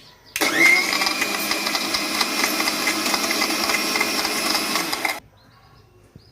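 Electric blender motor running for about five seconds, churning cold milk, ice cream and ice cubes into a milkshake. It starts suddenly and cuts off suddenly.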